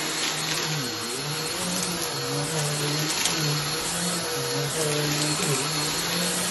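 Vacuum cleaner running on a shag rug. Its steady rushing sound carries a low motor hum whose pitch breaks and shifts up and down every half second or so, with a few faint clicks.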